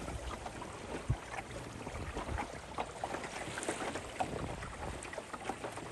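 Rain falling on the water and on a small open sailing dinghy: many small scattered taps over a steady hiss.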